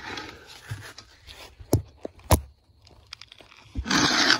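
Handling noise: rubbing and rustling, two sharp knocks about two seconds in, then a loud scraping rustle near the end.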